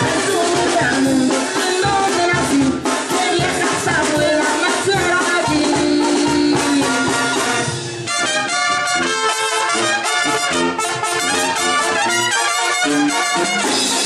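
Mexican brass banda playing live: trumpets, trombones and clarinets over sousaphone and drums. About halfway through, the horns change from held notes to short repeated ones.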